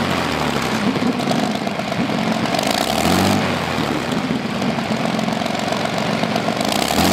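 2,500-cubic-inch Packard V12 PT boat engine idling through its row of open side exhaust pipes. The note swells briefly about three seconds in and again near the end.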